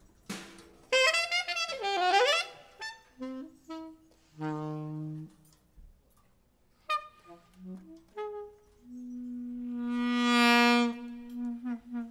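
Free-jazz recording opening on a lone horn, by its sound a saxophone. It plays sparse, separate phrases with pauses between them, bends one note down and back up early on, and holds a long note that swells loudly from about nine seconds in.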